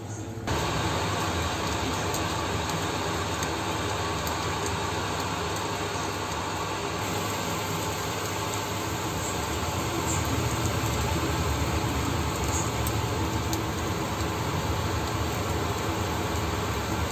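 Egg omelette frying in a pan: a steady sizzling hiss over a low steady hum, which starts suddenly about half a second in.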